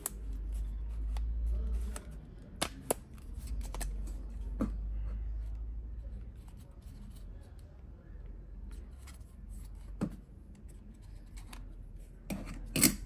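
Hands handling a Canon RF-S18-45mm kit lens: scattered small plastic clicks and taps over a low handling rumble, with a louder click near the end.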